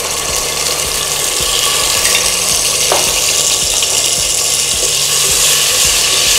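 Ginger-garlic paste sizzling in hot ghee in a pressure-cooker pot while it is stirred, a steady frying hiss that slowly grows louder.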